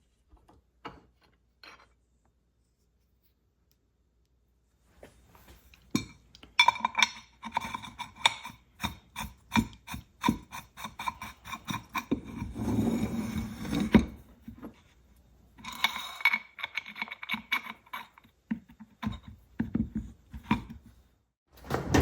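Metal parts and tools being handled on a workbench: a rapid run of clicks, knocks and scraping, some strikes ringing briefly. It starts a few seconds in after near silence and has two short pauses.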